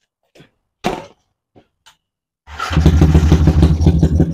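Yamaha Y15ZR single-cylinder motorcycle engine, just fitted with a new original magneto rotor, starts about two and a half seconds in and settles into a steady idle. A few light clicks and a sharp knock come before it starts.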